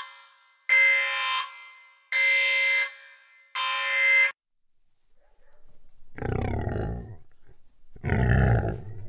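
Three electronic alarm-like beeps, each under a second long and about a second and a half apart, then two growling dinosaur roars about two seconds apart from a green toy T. rex.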